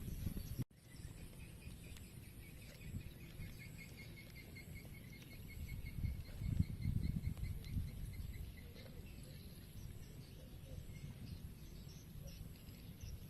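Outdoor rural ambience: a rapid chirping trill of many evenly spaced, high notes that sinks slightly in pitch over several seconds and then fades, over a low rumbling background noise.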